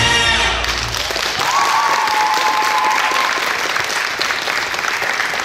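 Backing music for a rhythmic gymnastics routine stops just after the start, followed by steady audience applause. A single long high tone sounds over the clapping for about two seconds.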